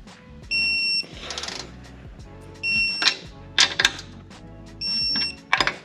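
Digital torque wrench beeping three times, about two seconds apart, each a short steady high tone, as the exhaust clamp bolts reach the set 10 foot-pounds; ratchet clicks come between the beeps, over background music.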